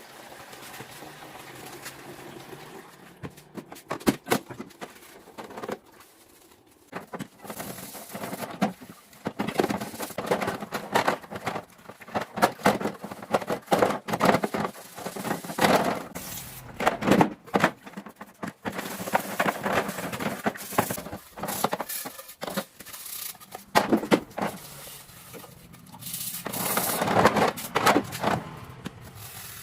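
Scrubbing a dirty second-hand refrigerator clean by hand: irregular runs of rubbing and scraping strokes with short pauses between, starting a few seconds in.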